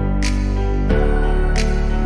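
Background music: sustained chords that change about a second in, with two light percussive ticks.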